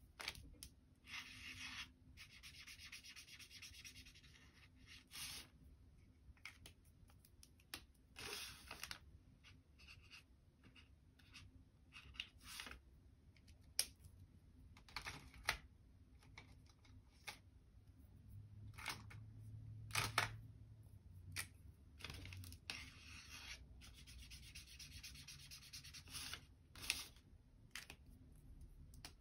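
Marker tip scribbling on paper as small circles are coloured in, faint, in several bursts of quick back-and-forth strokes, with scattered sharp clicks and taps in between.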